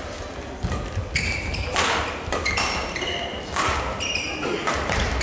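Badminton singles rally: repeated high-pitched squeaks of court shoes on the sports floor, with a few sharp smacks of rackets striking the shuttlecock.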